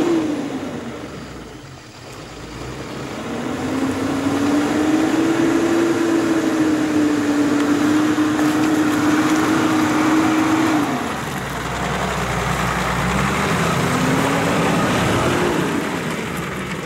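Off-road SUV engine revving hard under load as it climbs a muddy slope. It holds a high, steady note for several seconds, eases off about two-thirds of the way through, then revs up again.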